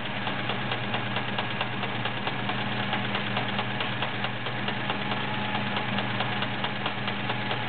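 Kenmore 1774 sewing machine running at a steady speed, stitching a scallop pattern set by a plastic pattern cam: an even motor hum under a fast, regular ticking of the needle strokes.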